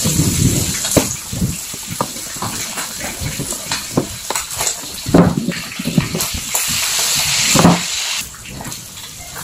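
Small clicks and scrapes of a kitchen knife, used as a screwdriver, working at the screws in the plastic case of a home WiFi modem, over a steady hiss.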